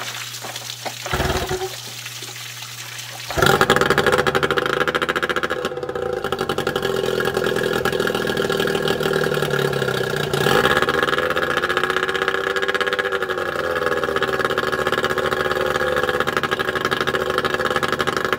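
Yamaha 9.9 two-stroke outboard, running on flushing muffs out of the water. It starts abruptly about three and a half seconds in and keeps running. About ten seconds in its pitch dips, then climbs and settles.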